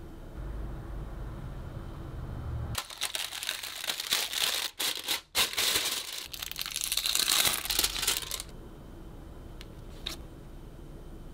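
Clear plastic wrapping on a photo binder crinkling loudly as it is handled and unwrapped, starting about a quarter of the way in and lasting around five seconds with a couple of brief breaks. A few faint clicks follow near the end.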